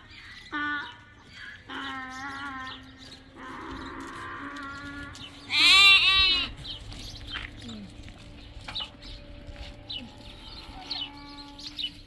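Sheep bleating: several separate wavering bleats, the loudest a long quavering one about six seconds in.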